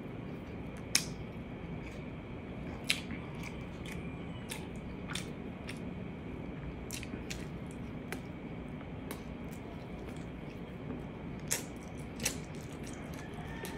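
Close-up eating sounds of a person picking braised pork ribs apart by hand and chewing: scattered wet clicks and smacks, the sharpest about a second in, around three seconds, and twice near the end as the meat goes to the mouth, over steady low room noise.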